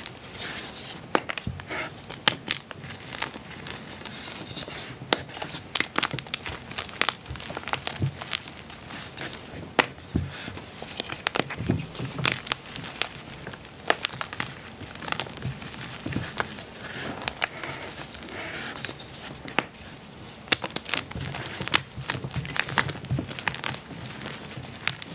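Blocks of gym chalk being crushed and crumbled by hand: a constant irregular run of crunches and sharp snaps, with loose chalk crumbs falling back onto a pile of powder and broken pieces.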